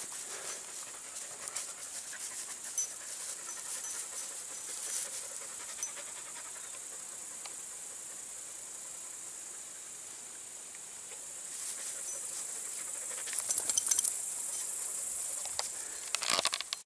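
Hunting laika panting, over a steady high hiss. Scattered sharp crackles sound throughout, with a cluster about 13 seconds in.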